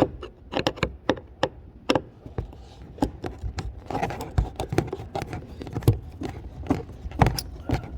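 Irregular clicks, taps and knocks of hands and tools working on plastic and metal parts while removing a car's rear door latch.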